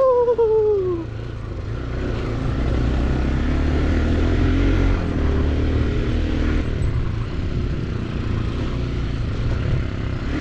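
Motorcycle engine running steadily under way on a rough dirt road, with a low rumble and noise over the microphone. A loud pitched tone glides down and fades out in the first second.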